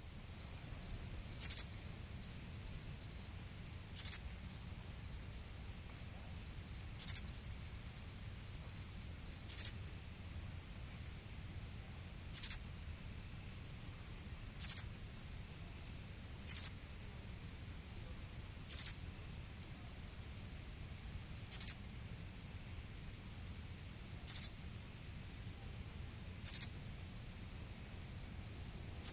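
Crickets chirping: a continuous high, rapidly pulsing trill, with a brief louder, hissier chirp about every two to three seconds.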